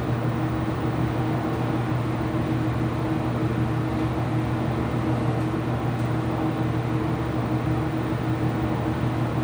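IPSO washing machine running: a steady low hum that does not change.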